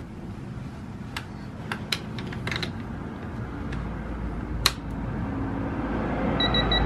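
Torque wrench tightening a motorcycle's oil drain plug to 18 foot-pounds: scattered ratchet clicks and metal taps, one sharper click a little over four and a half seconds in, then a quick run of short high beeps near the end as the wrench nears its set torque.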